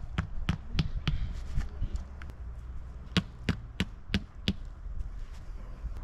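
A series of sharp, short knocks or taps, irregularly spaced and often about three a second, with a pause of about a second midway, over a steady low rumble.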